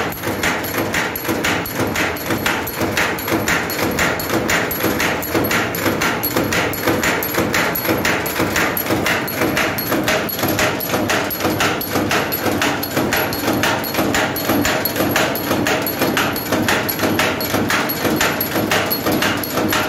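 Wire straightening and cutting machine running, with an even clatter of knocks several times a second as it feeds, straightens and cuts wire into short lengths.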